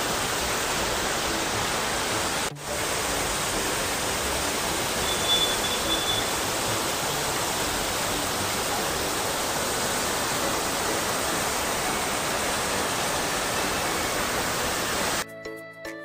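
Steady rush of a waterfall cascading over boulders, an even hiss of water with a brief drop-out about two and a half seconds in. Near the end the water sound cuts off abruptly and music begins.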